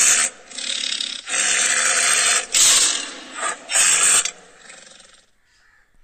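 Tiger growling: several harsh, breathy growls in quick succession over about five seconds.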